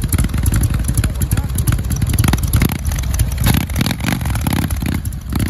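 Harley-Davidson V-twin motorcycle engines running with an uneven pulsing exhaust beat, swelling briefly a little past the middle.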